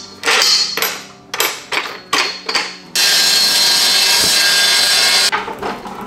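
Metal clanks and knocks as a steel tube is handled and clamped in a metal-cutting chop saw's vise. About three seconds in, the Evolution chop saw cuts through the steel tube with a steady, loud cutting noise that lasts a little over two seconds and stops abruptly.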